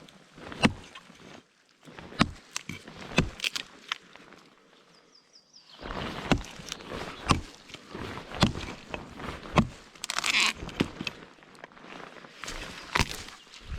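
Irregular knocks, cracks and rustles of someone moving about on the forest floor, with a quieter lull about four to six seconds in.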